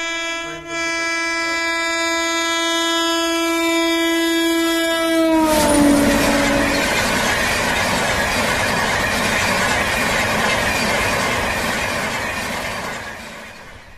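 An electric locomotive's horn sounds one long steady blast, its pitch dropping as the locomotive passes about five seconds in. Then the passenger coaches rush past in a loud, even roar that fades near the end.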